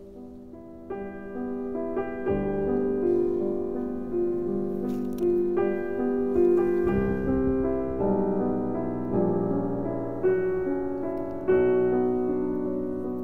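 Background piano music: a slow, gentle melody of held notes, quiet at first and growing fuller with lower notes about two seconds in.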